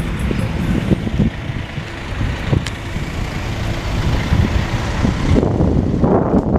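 Steady low rumble of outdoor street noise with road traffic.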